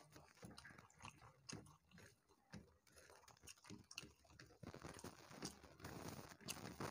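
Faint chewing and soft clicking mouth sounds of people eating rice and curry by hand, getting a little busier near the end.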